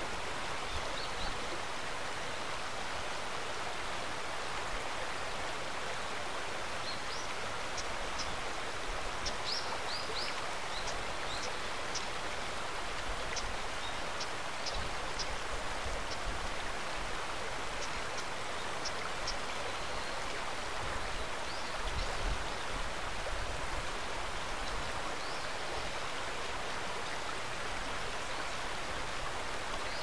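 Steady rushing of a stream, with a scatter of short, high bird chirps, most of them from about a quarter to two thirds of the way in.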